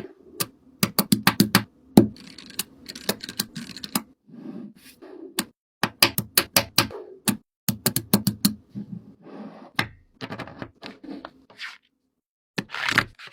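Rapid, irregular sharp clicks and taps in quick runs, with short rustling or scraping sounds between them, typical of small hard objects being handled up close.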